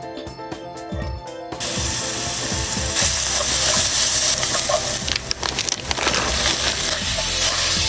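Background music for the first second and a half, then chopped onion sizzling steadily in hot olive oil in a nonstick frying pan, louder from about three seconds in, with the scrape and clack of a wooden spatula stirring it.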